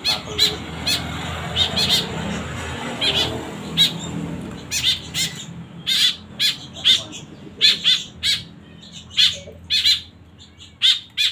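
Fledgling white-breasted woodswallows giving short, harsh begging calls over and over as they are hand-fed, about one or two calls a second. A rushing noise lies under the calls for the first four seconds.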